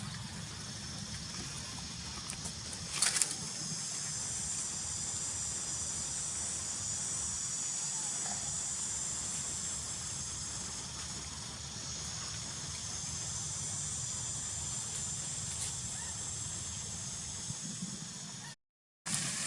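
Steady outdoor background noise, a high wavering hiss over a low rumble, with one short sharp sound about three seconds in and a brief cut-out near the end.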